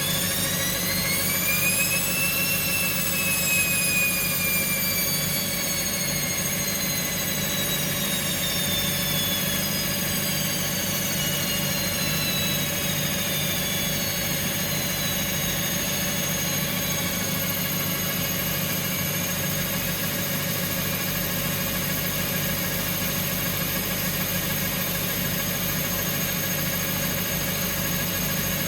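Bosch Classixx and Hoover washing machines on their final spin, running with a steady low hum. A motor whine rises for about two seconds, then falls slowly away over some fifteen seconds as a drum changes speed.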